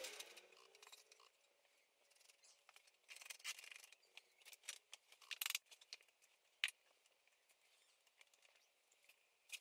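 Faint, scattered clicks and short scrapes of metal bar clamps being slid along their bars and tightened on a wooden frame, with one sharp click about two-thirds of the way through.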